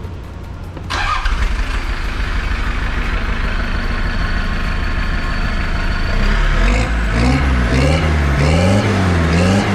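Mitsubishi Delica van's diesel engine running, starting suddenly about a second in, then revving up and down repeatedly over the last few seconds.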